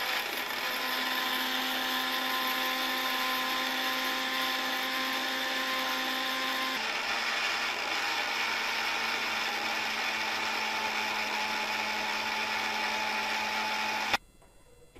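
Orpat 1200-watt mixer grinder running at speed, its motor and stainless steel blades grinding whole dried red chillies to powder in a small stainless steel jar. The steady whine drops slightly in pitch about seven seconds in, and the motor stops abruptly near the end.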